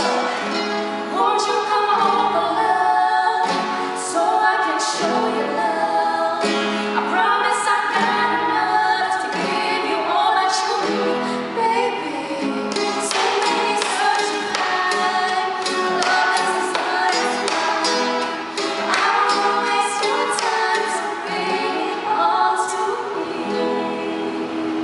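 Two women singing a pop song to a strummed nylon-string classical guitar.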